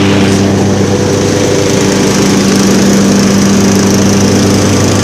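Craftsman riding lawn mower's engine running steadily with an even hum.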